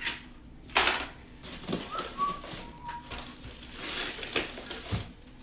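Handling noise from monitor packaging and parts being moved: a sharp knock about a second in, then scattered taps and rustles. A short, faint whistle-like tone sounds near the middle.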